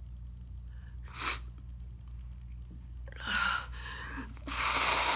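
A person with a bad head cold sneezing: a brief sharp breath about a second in, a gasping intake around three seconds, then the loudest, a noisy burst lasting about a second near the end.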